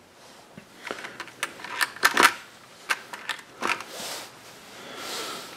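Light clicks and taps of small metal tools being handled and set down on a wooden workbench, about ten in a quick irregular run, followed by soft rustling.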